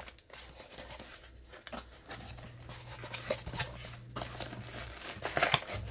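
Hands opening a small cardboard box, folding back its flaps and handling the tissue paper packed inside: a run of light scrapes, taps and crinkles.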